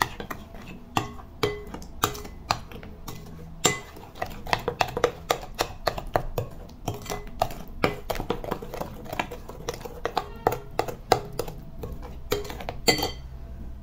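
Metal spoon stirring cocoa into kefir batter in a glass bowl, clinking and scraping against the glass in irregular taps, several a second.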